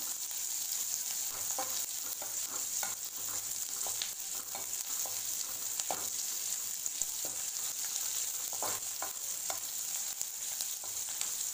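Small onions, dried red chillies and curry leaves sizzling in hot oil in a metal kadai while a metal spatula stirs them, scraping and clicking irregularly against the pan. They are being sautéed until soft, the tempering stage of a poriyal.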